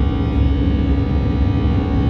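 Airbus A319 cabin noise in the initial climb: the CFM56 turbofans at climb thrust give a steady low rumble with airflow noise, with a faint hum of steady engine tones above it.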